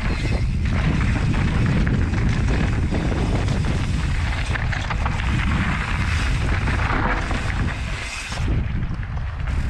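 Heavy wind buffeting on the microphone, with the tyres crunching over a rooty dirt trail and the rattle and knocks of a mountain bike, a YT Jeffsy 27.5, riding fast downhill. The wind rumble drops briefly about eight seconds in.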